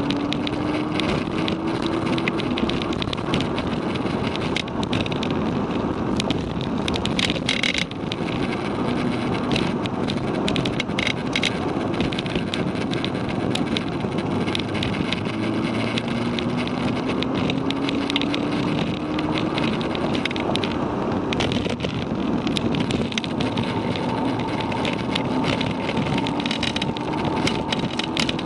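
Cabin sound of a Volkswagen Mk6 Golf GTI's APR Stage 1-tuned turbocharged 2.0-litre four-cylinder driven hard on a race track: the engine note climbs in pitch as it pulls up through the revs, three times, over steady road and wind noise. Frequent short clicks and rattles run through it.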